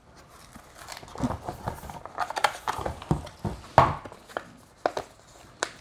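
Box packaging being handled: rustling with a scatter of small clicks and taps, the sharpest a little under four seconds in.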